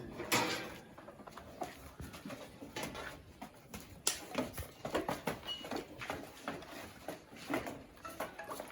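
Goats moving about in a pen, with irregular hoof taps and scuffling.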